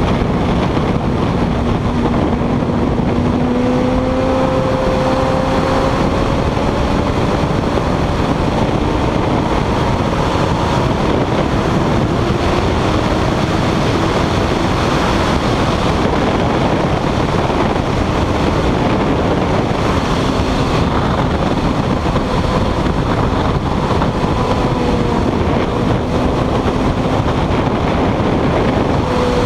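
Heavy, steady wind noise over the microphone of a camera mounted on a sport motorcycle at track speed. The engine's note sounds faintly underneath, its pitch drifting slowly up and down with the throttle.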